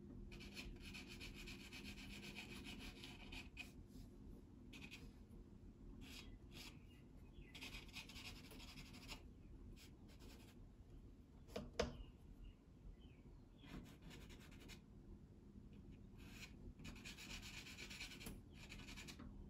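Soft pastel stick scratching faintly across sanded pastel paper in stretches of short crosshatching strokes, with one light knock about twelve seconds in.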